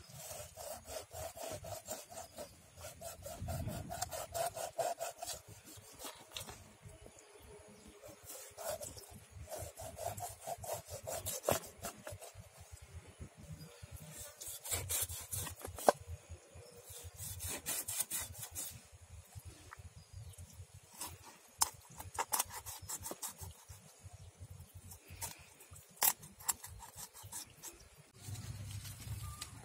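A knife sawing slashes into a whole scaly fish on a wooden cutting board, the blade rasping through scales and skin in bursts of quick short strokes. A few sharp knocks stand out, one about halfway through and one near the end.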